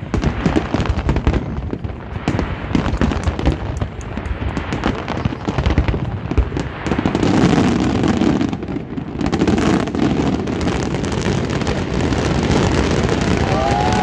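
Fireworks display: a rapid, unbroken run of bangs and crackling from aerial shells, becoming louder and denser about halfway through.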